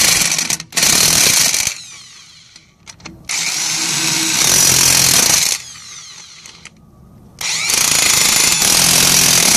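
Corded electric impact wrench running in loud bursts as it hammers car lug nuts back on: four runs, the longest about two seconds, with short pauses between.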